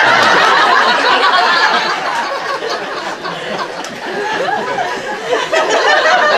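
A crowd laughing loudly at a joke, many voices at once. It is loudest at first, eases off a little, then swells again near the end.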